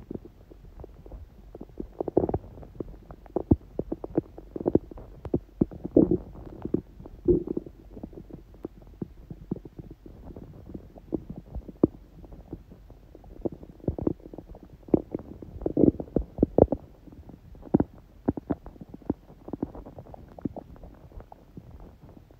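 A person's stomach gurgling: many short, irregular gurgles and pops, with louder ones about two, six and sixteen seconds in.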